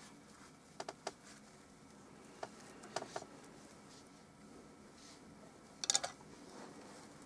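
A few light clicks and taps in small groups, with the loudest cluster near the end, from small objects being handled, over a low room hiss.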